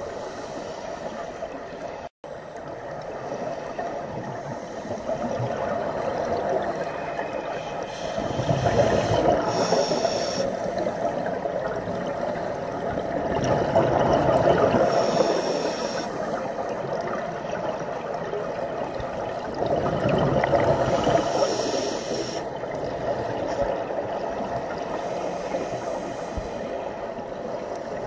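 Underwater scuba diving sound: a steady bubbling hiss that swells three times, about every six seconds, as the diver breathes through the regulator and exhaled bubbles stream past. A brief dropout about two seconds in.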